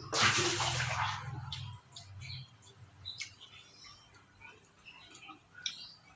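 Crunching and chewing of crispy deep-fried tofu close to the microphone: a loud crunchy bite at the start, then quieter scattered crunches.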